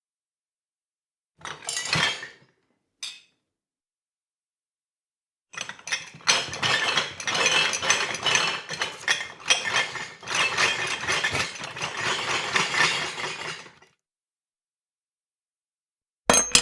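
Someone rummaging through hard clinking objects, dishes, cutlery and glass rattling and knocking together. A short clatter comes about a second and a half in and a single clink near three seconds, then a long unbroken bout of rummaging runs for about eight seconds. A sharp knock lands right at the end.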